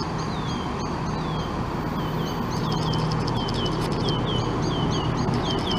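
A small bird calling over and over in short chirps that fall in pitch, over the steady low hum of a Class 170 diesel multiple unit idling at the platform.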